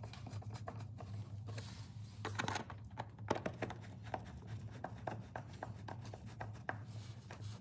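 Screwdriver working the screws on a plastic air filter box lid: irregular small clicks, ticks and scrapes of metal on plastic, over a steady low hum.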